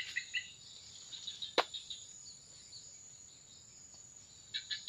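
Swamp-side insect chorus: a steady high-pitched insect drone, with a run of quick repeated chirps at the start and again near the end, and one sharp click about a second and a half in.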